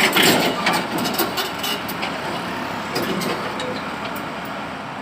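Excavator's diesel engine running, with a louder surge right at the start and scattered sharp metal clanks and knocks.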